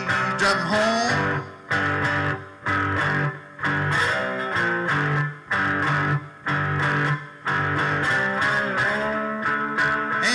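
Three-string fretless cigar box guitar playing an instrumental blues riff: plucked notes in short phrases broken by brief gaps about once a second, with sliding notes near the start and again near the end.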